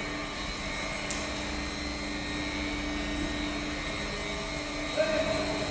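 Semi-automatic carton feeder and flexo printing machine running steadily, a continuous mechanical hum with a few steady tones. A sharp knock about five seconds in.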